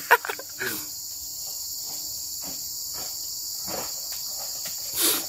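Steady high-pitched chorus of insects, with a few short knocks and thuds, the loudest about five seconds in.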